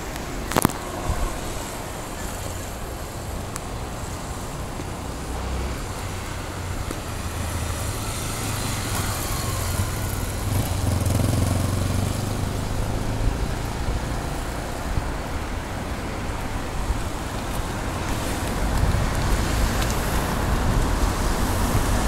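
Road traffic: a steady rush of passing cars and motorbikes, swelling about halfway through as a vehicle goes by, with a single sharp click near the start.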